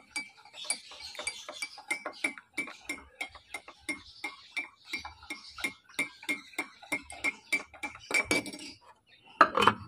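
Metal teaspoon stirring milk in a glass mug, clinking against the glass about four times a second, with a faint ring from the glass. A louder knock about eight seconds in.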